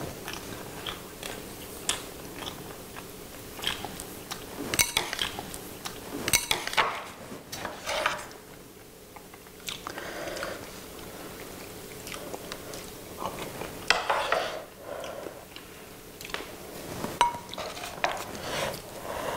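Two people eating, with chewing and crunching sounds as they bite into rice wrapped in steamed pumpkin leaves. Spoons and chopsticks click against the bowls.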